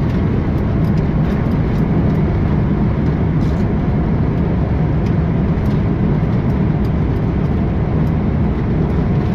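Steady loud rumble inside a Boeing 787-9 cockpit on the landing roll just after touchdown: engine and runway noise heard from the flight deck.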